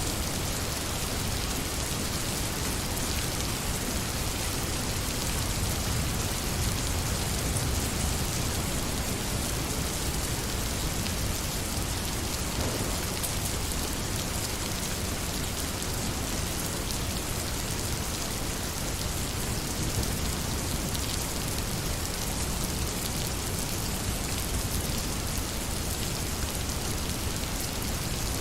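Steady, even rain falling on surfaces, a continuous hiss with fine drop patter.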